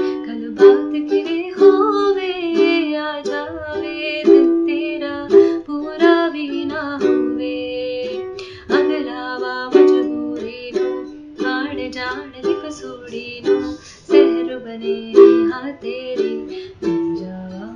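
Ukulele strummed in a repeating A minor, F, D minor, G chord loop, capoed at the second fret, with a woman singing along in places.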